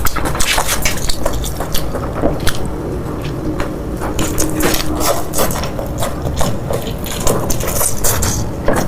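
Close-miked eating sounds: irregular wet chewing and mouth clicks and smacks, dense and continuous.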